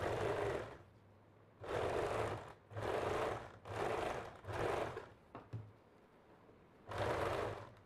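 Janome domestic electric sewing machine stitching fabric in six short runs of under a second each, stopping and starting as the fabric is guided, with a longer pause in the second half.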